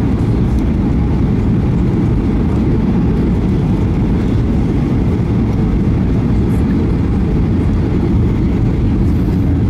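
Steady low rumble inside a Boeing 737 airliner's cabin on final approach: the jet engines and the rush of air over the lowered flaps, heard from a window seat over the wing.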